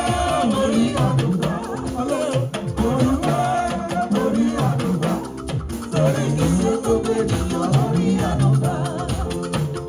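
Church gospel music: voices singing over drums and shaken percussion keeping a steady beat.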